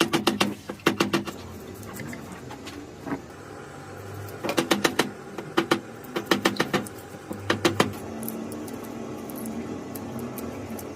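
Bursts of rapid, sharp metallic clicking and tapping from hand work on machine parts, several groups of clicks with pauses between, over a low steady hum.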